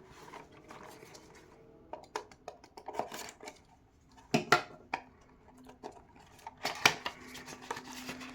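Small cardboard blind box being handled and opened: a run of irregular sharp clicks and taps with light rustling, sparse at first and busier from about two seconds in.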